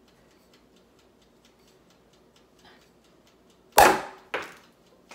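Champagne cork popping out of a small single-serve bottle that was not chilled: one loud pop near the end, followed half a second later by a second, shorter knock.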